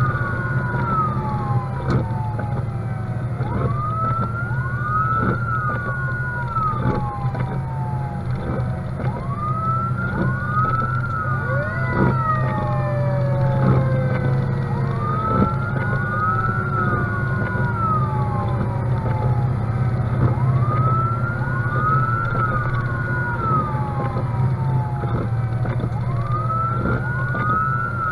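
Fire engine's siren sounding in a repeated cycle: a quick rise in pitch, a short hold at the top, then a slow fall, starting again about every five and a half seconds. A steady low drone of the truck's engine and road noise runs underneath.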